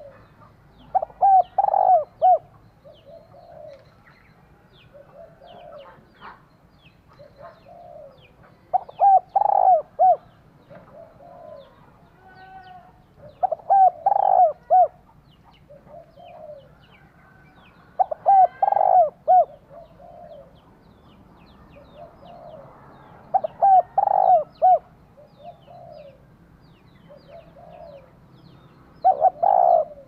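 Spotted dove cooing: about every four to five seconds a loud phrase of several quick coos, six in all, with softer single coos in between. It is given as a hen's call used to stir up cock doves. Faint chirps of small birds run in the background.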